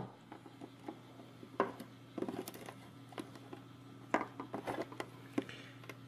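Faint handling noise: a few light clicks and rubs of fingers moving a small circuit board with plastic jumper-wire connectors, over a low steady hum.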